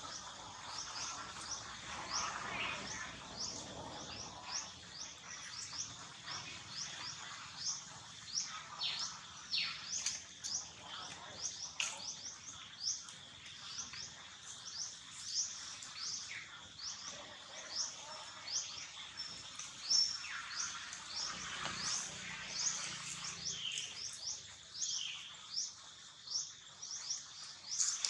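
Outdoor birdsong: a high, quick chirp repeated about three times a second throughout, with a few louder calls that sweep downward.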